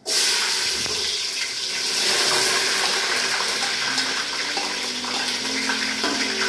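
Sliced onions sizzling in hot oil in an aluminium pot as they are tipped in and spooned out of a plastic bowl: a loud, steady frying hiss that starts suddenly.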